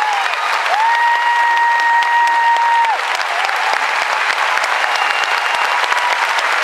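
Concert audience applauding steadily, with one person in the crowd holding a long, steady high whistle for about two seconds near the start.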